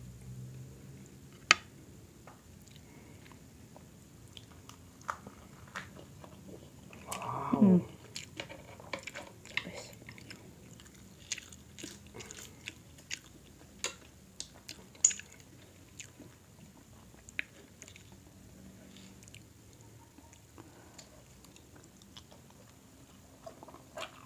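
Close-up eating sounds of a seafood boil: chewing, with scattered sharp clicks and cracks as crab shell and mussel shells are picked apart by hand. A brief voiced sound with a falling pitch about seven seconds in.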